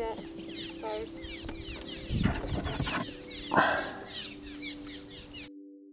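Birds chirping and chattering in quick, falling calls, over a steady low hum. There are two brief rustles about two and three and a half seconds in.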